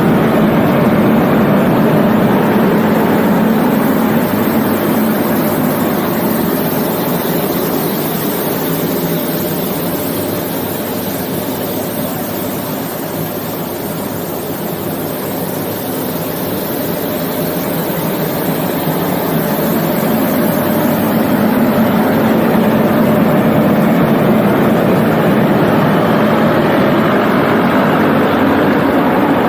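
Nilgiri Mountain Railway steam-hauled toy train running, heard from on board: a steady running noise that eases a little midway and builds again.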